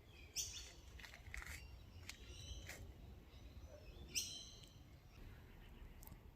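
Birds calling in bushland. Two sharp calls that fall quickly in pitch, one just after the start and one about four seconds in, with fainter chirps between them.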